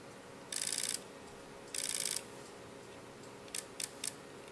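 PolarStar HPA engine in an airsoft rifle firing two short, rapid full-auto bursts of sharp air-valve shots, then switched to semi-auto and firing single shots near the end.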